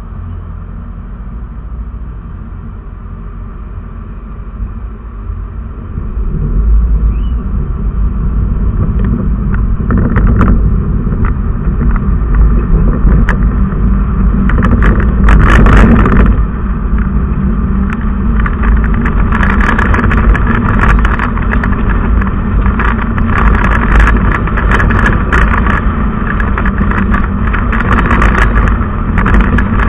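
Engine of the camera vehicle running at a steady low rumble while stopped in traffic, then pulling away about six seconds in, with road and wind noise buffeting the microphone as it gathers speed.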